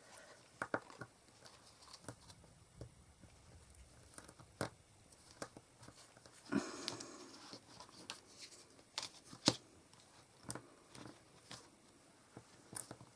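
Faint handling sounds of card-making: scattered light clicks and taps as fairy-light wire is pressed onto a card with glue dots, with a brief crinkly rustle about six and a half seconds in.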